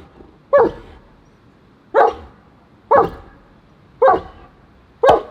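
German Shepherd barking, five single barks about a second apart.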